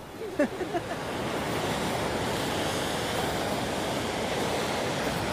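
Ocean surf breaking on a rocky shore, a steady rushing wash that builds over about the first second and then holds.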